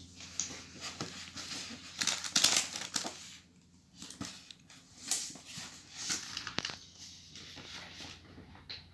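Knife slitting the packing tape on a small cardboard box, with tape ripping and cardboard scraping and rustling in uneven strokes and clicks, loudest about two to three seconds in.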